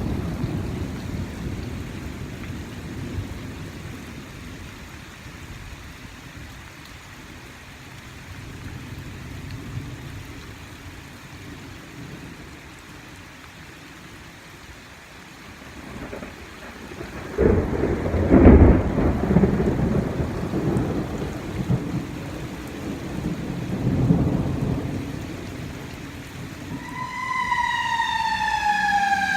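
Heavy thunderstorm rain falling steadily while thunder rumbles twice, the louder peal about halfway through. Near the end a siren starts up, sliding down in pitch.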